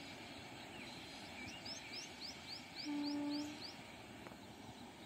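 A horn, most likely a train horn, sounds once as a steady tone for under a second, about three seconds in. Around it a bird gives a run of quick rising chirps, about four a second, over a steady background hiss.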